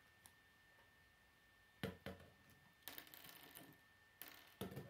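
Plastic K'nex pieces clicking and rattling as they are handled and snapped together: two sharp clicks about two seconds in, a short rattle, then two more clicks near the end.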